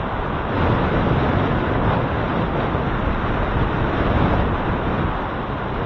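Steady rushing wind noise on the microphone of a camera riding on a moving bicycle, with no distinct events.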